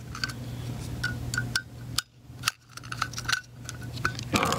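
Small metallic clicks and clinks of a screwdriver turning and working the little screws and clips on a projector lamp's metal surround, loosening them to free the bulb. A steady low hum runs underneath and drops out briefly about halfway through.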